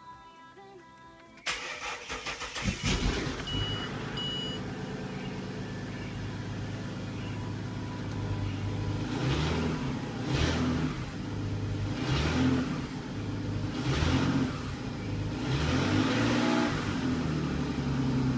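Ford Territory engine cranking and catching about a second and a half in, then running loud through a leaking exhaust. From about halfway on it is revved in short blips roughly every one to two seconds, each rising and falling in pitch.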